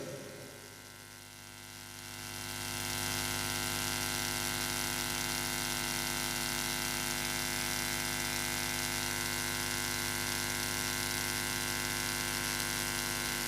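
Steady electrical mains hum with a stack of overtones from an amplified sound system. It dips in level about a second in, then rises and holds steady from about three seconds in.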